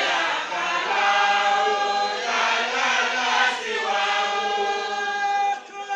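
A group of voices chanting together in long, drawn-out held notes, pausing briefly about two seconds in and again near the end: congregational devotional chanting.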